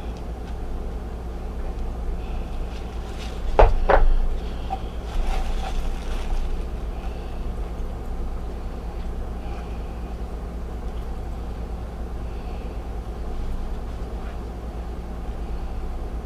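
Steady low hum, with packaging being handled: two sharp crackles about three and a half and four seconds in, and a little fainter rustling after them.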